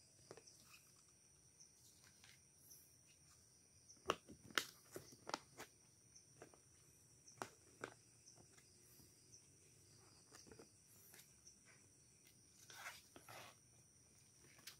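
Paper crinkling and rustling as gloved hands handle a paper warranty card and unfold a folded instruction manual. The crackles come in short clusters: loudest about four to five seconds in, again near eight seconds and around thirteen seconds, with quiet between. A faint steady high whine sits underneath.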